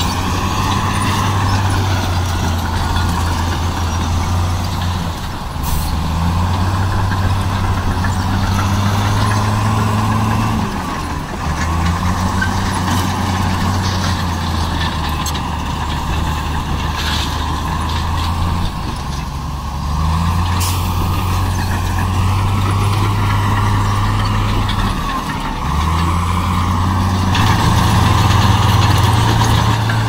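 Heavy diesel engine of an earthmoving machine running, its note stepping up and down between a lower and a higher pitch every few seconds.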